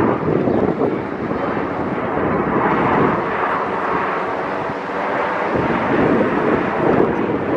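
Jet engine noise from a formation of F-16 fighter jets flying overhead, a loud, steady rumble.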